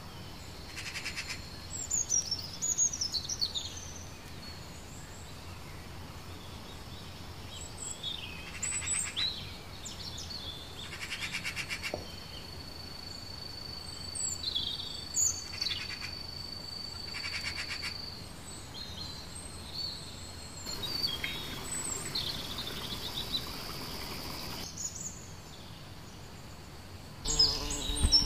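Wild birds chirping and calling in woodland: scattered short chirps and quick sweeping notes, with a few short rapid trills, over a thin steady high tone that stops about two-thirds of the way through. A louder mixed noise starts near the end.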